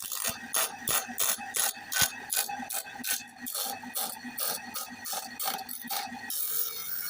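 A file stroking across the teeth of a hand saw being sharpened: short, rasping strokes in an even rhythm of about three a second, which stop about six seconds in and give way to a steadier hiss.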